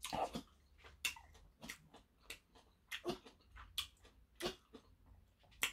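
Quiet mouth sounds after eating: a dozen or so short lip smacks and tongue clicks with small breaths, spaced irregularly.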